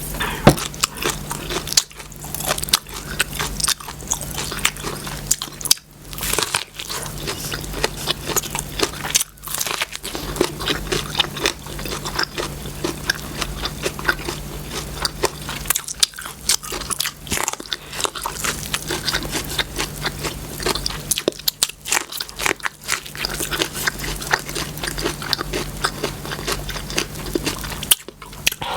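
Close-miked eating: a person biting and chewing food, with a dense run of crunchy mouth clicks, over a steady low hum.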